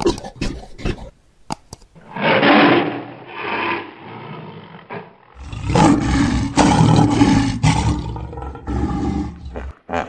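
Recorded wild-animal roar sound effects laid over the toy scene: a few quick clicks at the start, then one roar lasting about three seconds, then a louder, longer roar from about five seconds in until near the end.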